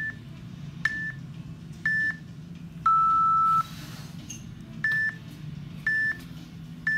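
Interval timer beeping. Three short high beeps come a second apart, then a longer, lower beep marks the end of the squat hold. About two seconds later three more short high beeps start counting down the end of the rest period.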